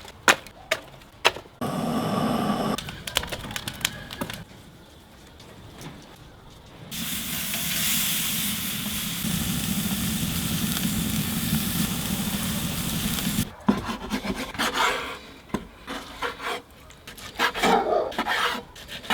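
Food sizzling over a campfire: a loud, steady sizzling hiss for about six seconds in the middle, with scattered clicks and knocks of cooking handling before and after it.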